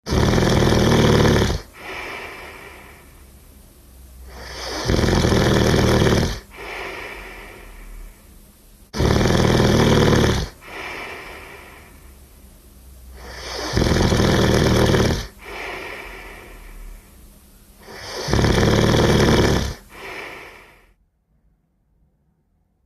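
A sleeper snoring: five loud snores about every four and a half seconds, each lasting about a second and a half, with softer, noisy breathing between them. The snoring stops near the end.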